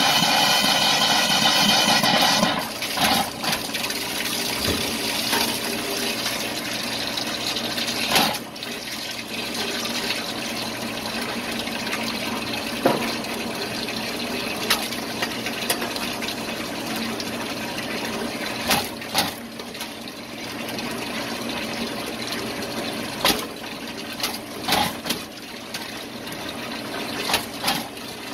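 Water running from a sink faucet into a stainless steel basin, sputtering as air trapped in the water lines comes out. The flow is louder for the first couple of seconds, then splashes steadily with sudden spurts and spits every few seconds.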